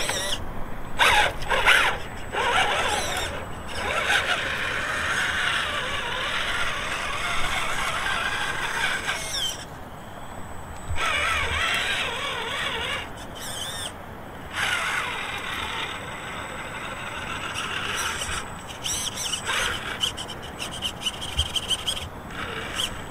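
Redcat Gen9 1/10-scale RC trail truck's electric motor and gears whining as it crawls, the pitch rising and falling with the throttle. It cuts out in short pauses when the truck stops, about ten and fourteen seconds in.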